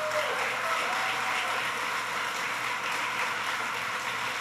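Audience applauding, with a few cheers near the start.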